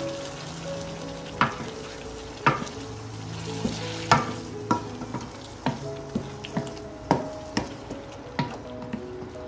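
Wooden spatula stirring chicken wings in a thick tomato gravy in a wok, with a steady sizzle and irregular sharp clacks as the spatula strikes the pan, about a dozen times.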